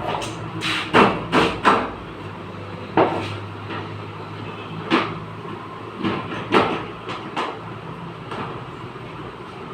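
Hammer blows on the sheet-metal body of an accident-damaged Suzuki Alto during denting: about ten sharp strikes at uneven intervals, bunched in the first two seconds and again from about five to seven and a half seconds in.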